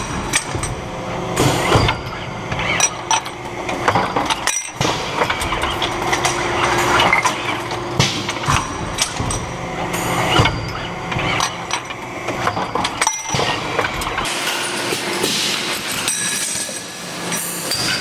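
Automatic rotary cartridge assembly machine running. There is a steady mechanical din of the indexing dial table and press stations, with frequent sharp metallic clicks and clanks over a constant hum.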